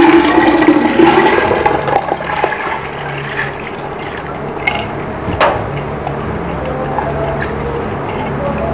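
Soaked yellow lentils poured with their water from a bowl, splashing into water in a clay cooking pot; loudest in the first two seconds, then a quieter trickle and patter. A single sharp click about five and a half seconds in.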